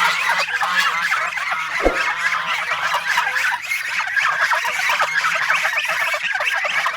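A flock of domestic geese honking, many short calls overlapping in a continuous chorus, with a single low thump about two seconds in.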